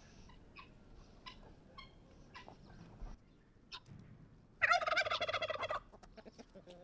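A turkey gobbling once, a rapid warbling call lasting about a second, a little past halfway through. Before it come a few faint, short clicks and taps.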